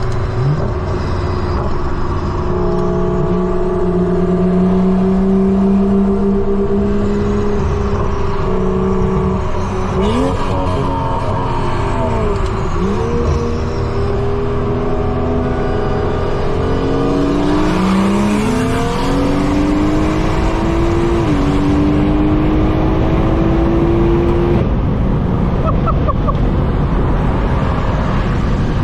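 BMW 340i's turbocharged B58 straight-six with an open dump and AWE track exhaust under way: the engine note holds, dips and climbs again around ten to thirteen seconds in, climbs hard again around seventeen to twenty-one seconds with a step like a gear change, then fades out about twenty-five seconds in, leaving a steady rush of road and wind noise.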